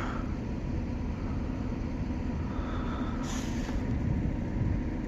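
Steady low rumble of an approaching freight train, with a brief hiss about three seconds in.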